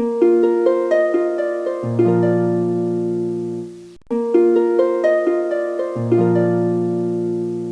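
Short piece of music: a run of quick plucked notes with a low held bass note joining in partway, played twice through, the second time starting about four seconds in.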